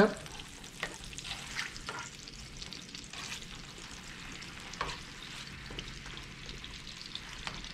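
Honey, butter, lemon slices and garlic sizzling gently in a frying pan while a spatula stirs through the sauce, with a few short clicks and scrapes of the spatula against the pan.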